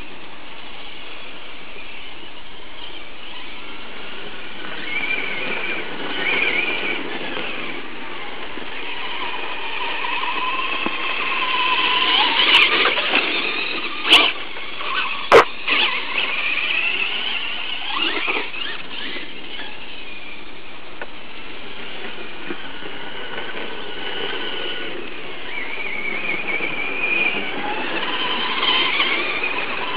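Two Traxxas Stampede electric RC trucks, a brushless VXL and a brushed XL-5, driving hard: a high motor-and-gear whine that rises and falls in pitch as they accelerate and slow. Two sharp knocks come about halfway through.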